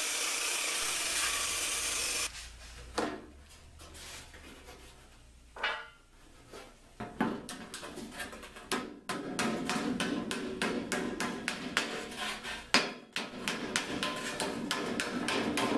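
A handheld power tool runs steadily for about two seconds at the start, trimming the edge of a sheet-metal panel. After a few scattered knocks, from about seven seconds in, a mallet strikes rapidly on sheet metal laid over an anvil, several blows a second, folding the edge over on itself.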